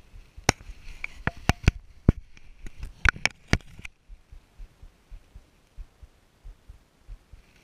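Handling noise while a caught rainbow trout is held up over a wooden dock: a quick run of about ten sharp clicks and knocks over roughly three seconds, then only faint low thumps.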